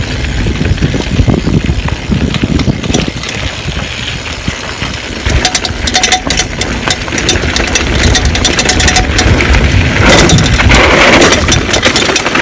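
Mountain bike being ridden on a rough road: wind rumbling on the microphone with rattling clicks from the bike and tyres, and a louder rush of noise near the end.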